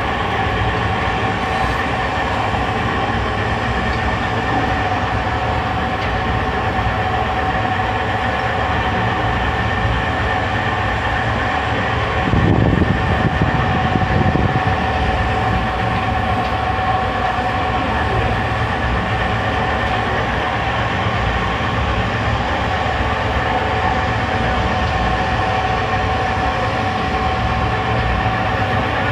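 Ribbon blender running with an empty trough: the electric motor and gearbox turning the ribbon agitator make a steady mechanical drone with a constant whine. A louder low rumble swells for a couple of seconds about halfway through.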